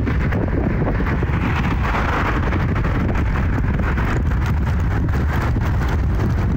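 Business jet flying overhead, a steady rumble of its turbofan engines, mixed with wind buffeting the microphone.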